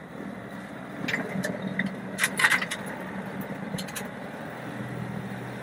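Tractor running a PTO-driven chain slasher with a three-chain steel rotor through rushes and grass: a steady low machine drone. Over it come sharp cracks and rattles from the cutting, loudest about two and a half seconds in.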